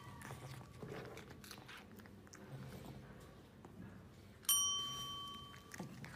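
Desk service bell struck once about four and a half seconds in: a clear metallic ding that fades over about a second. Before it, only faint rustling and small clicks.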